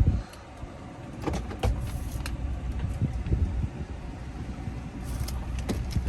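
A truck running, heard from inside the cab as a steady low rumble, with a loud thump at the start and scattered small clicks and knocks, like controls or fittings being handled.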